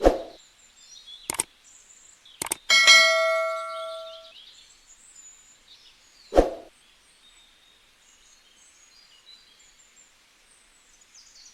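A few sharp knocks, and about three seconds in a metallic clang whose ringing tone dies away over a second or so.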